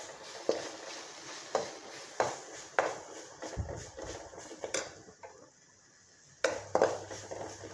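Steel spoon scraping and knocking against an aluminium kadai as onions are stirred and sautéed, in irregular strokes with a pause of about a second near the end.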